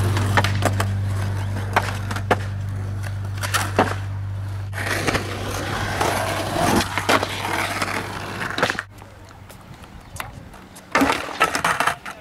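Skateboard on concrete: wheels rolling, with repeated sharp clacks of the board popping and landing. A low steady drone underneath fades out about nine seconds in, and a quick run of clacks comes near the end.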